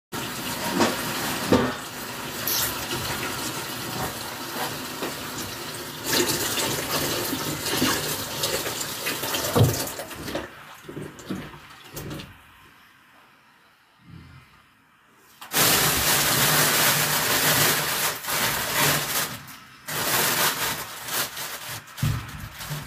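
Water running from a kitchen tap into the sink, a steady rush with a few knocks of things in the sink. It tails off about ten seconds in, stops for a few seconds, then comes back on strongly.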